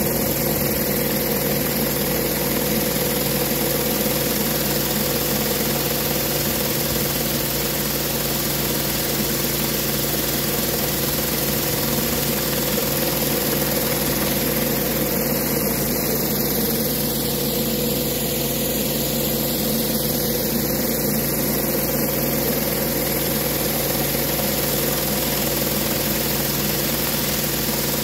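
Pressure washer's petrol engine running steadily, with the hiss of high-pressure water spraying from a rotary flat surface cleaner onto wet pour rubber surfacing.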